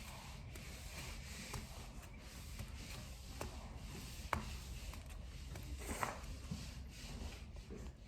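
Faint rubbing and wiping against a surface, with a few light ticks, the sharpest about four seconds in and another near six seconds.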